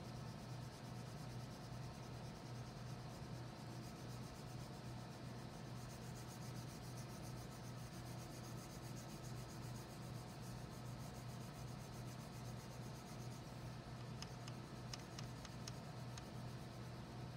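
A red wax crayon scribbled rapidly back and forth on paper, a faint scratchy rubbing over a steady low hum, with a few light clicks near the end.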